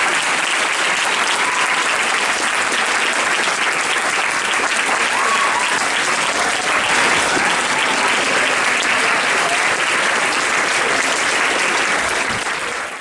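Large audience applauding steadily in an ovation, with a few shouts rising over the clapping; the sound fades out near the end.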